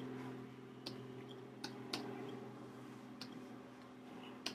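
Five faint, sharp computer-mouse clicks at irregular intervals over a steady low electrical hum, as programs are switched on a desktop computer.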